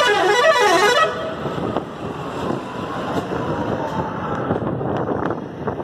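A vehicle horn blares with a warbling tone for about the first second, then gives way to steady street traffic noise and wind gusting on the microphone.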